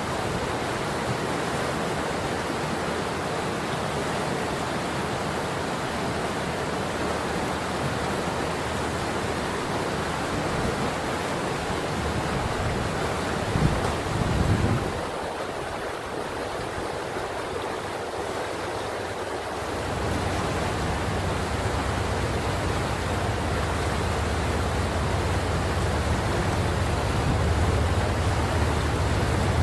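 River water flowing, a steady rushing hiss. A short low buffet sounds around the middle, and about two-thirds through a low rumble joins and slowly grows louder.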